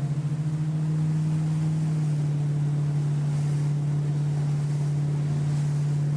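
Motorboat engine running at a steady speed, a strong, even low hum that holds throughout, with some wind noise on the microphone.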